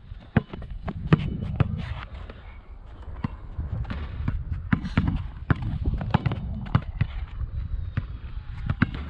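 Basketballs bouncing on a rubberised outdoor court as players dribble: sharp separate thuds at an uneven pace, roughly one or two a second, over a low rumble.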